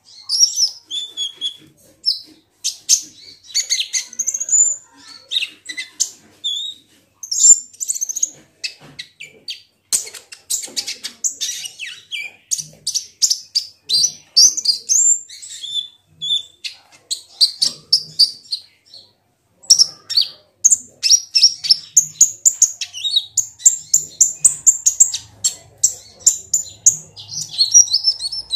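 Olive-backed sunbird (kolibri ninja) singing: rapid runs of high, sharp chirps and short trills, with brief breaks between runs.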